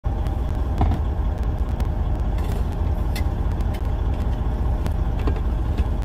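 Steady low rumble of a semi truck's diesel engine running, heard from inside the cab, with a few light clicks.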